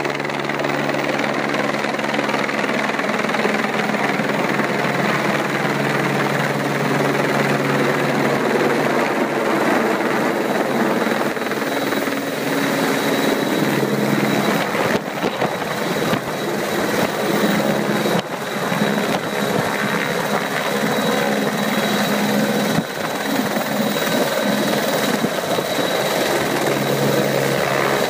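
Rescue helicopter hovering low and setting down on a snowy slope: a steady turbine whine over the beat of the main rotor, with heavy rushing rotor-wash noise throughout.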